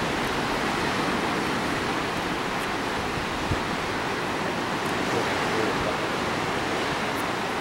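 Steady rush of ocean surf washing over the water below, mixed with wind, with one brief knock about three and a half seconds in.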